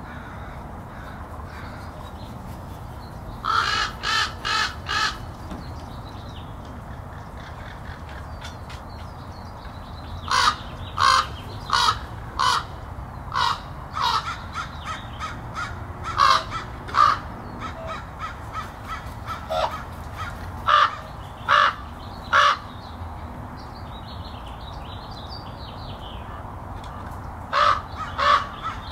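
American crows cawing in series of short repeated caws: a group of about four a few seconds in, a long run through the middle, and three more near the end, over steady low background noise.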